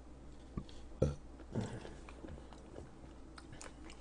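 Close-miked sounds of a person eating chopped live octopus: soft chewing and mouth noises, with a sharp knock about a second in and another short clatter half a second later.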